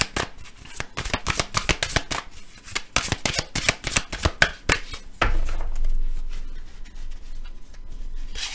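A deck of angel oracle cards being shuffled by hand: a fast run of sharp card snaps for about five seconds, then a sudden low rumble of handling that slowly fades.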